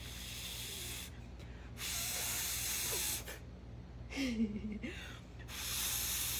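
Hissing noise in three bursts of one to two seconds each, with a short voice-like sound between the second and third bursts.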